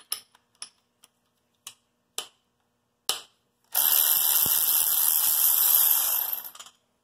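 Ratchet with socket and extension on the front-plate bolts of a Honda F23A1 engine: a few light metal clicks and clinks as the socket goes on, then about three seconds of continuous ratcheting as a bolt is run out, stopping just before the end.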